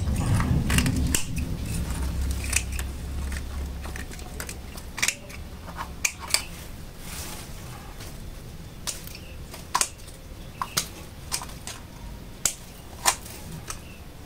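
Small hand pruning shears snipping stems at the base of a bonsai tree: a dozen or so short, sharp snips at irregular intervals.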